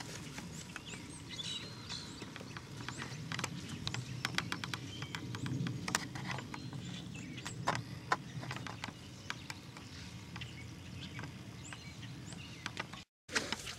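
Footsteps through grass with irregular clicks and knocks of a handheld camcorder being carried along, over a low rumble, with a few faint high chirps. The sound cuts out briefly near the end.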